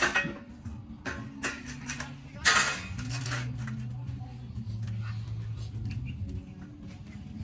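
Scattered metal clinks and knocks as steel parts are handled, with a louder harsh noisy burst about two and a half seconds in, over a low background hum or murmur of voices.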